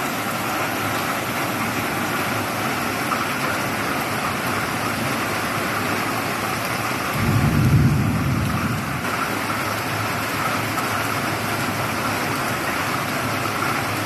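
Heavy rain pouring down onto a flooded street, a steady hiss. About seven seconds in, a low rumble swells up and fades over a couple of seconds.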